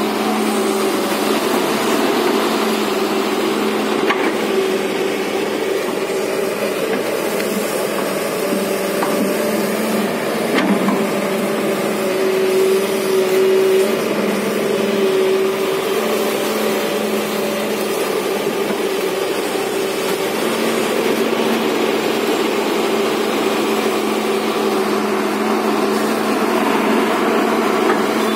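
Tata Hitachi EX200LC excavator's diesel engine running steadily as the machine digs and lifts wet mud with its bucket, with a couple of brief knocks about four and ten seconds in.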